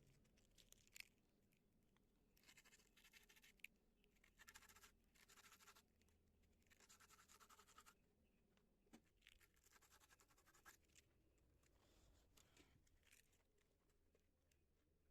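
Faint scraping in four stretches of about a second each, with scattered light clicks and knocks in between: hand work on machine parts.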